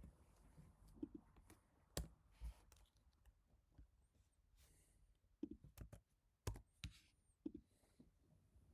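Faint, sparse keystrokes on an HHKB Type-S keyboard with silenced Topre switches: scattered soft clicks, a few in quick succession, then pauses.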